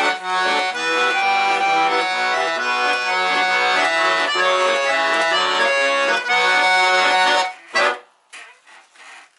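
Weltmeister button accordion (bayan) playing a war song, a melody over bass-and-chord accompaniment. The playing stops about seven and a half seconds in with one short closing chord, followed by a few faint soft sounds.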